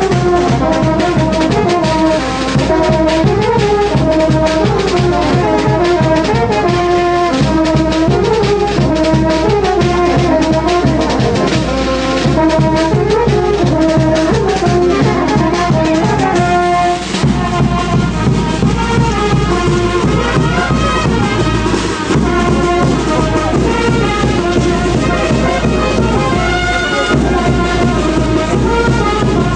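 Brass band playing a wititi dance tune: trumpets and trombones carry a stepping melody over a steady low accompaniment, with a brief break in the melody about halfway through.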